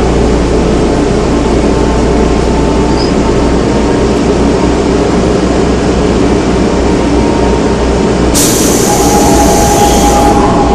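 Seoul Metro Line 3 old 3000-series GEC chopper-controlled subway train running, a loud steady rumble of wheels and motors. About eight seconds in a burst of high hiss lasts about two seconds, and a steady whine comes in near the end.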